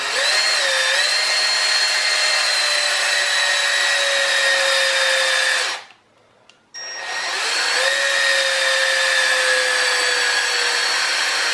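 Power drill spinning a geared DC motor used as a generator, working against a 12 V car heater load: a steady whine that slowly sags in pitch. It stops for about a second just before the middle, then spins back up and runs again.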